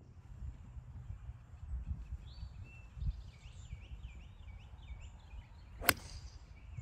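A bird sings a series of quick repeated chirps, then a 2-iron strikes a golf ball with one sharp click about six seconds in.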